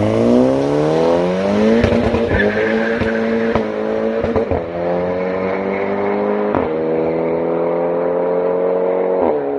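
Volkswagen Golf engine and exhaust accelerating: the pitch climbs over the first two seconds, then runs high and nearly steady, with a few brief breaks.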